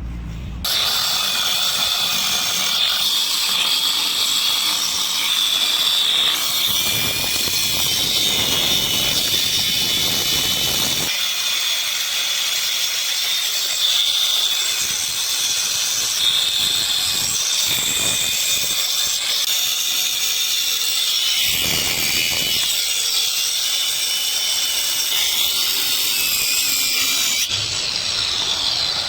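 Electric angle grinder running steadily with a high whine and hiss. It starts about a second in and cuts off near the end.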